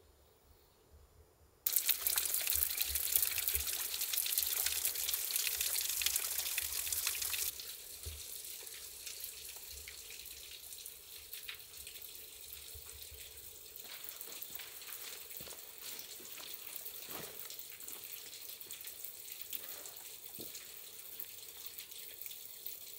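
Running water, a steady rushing hiss that starts abruptly about two seconds in. It is loudest for the first few seconds, then goes on quieter and steadier with scattered small ticks.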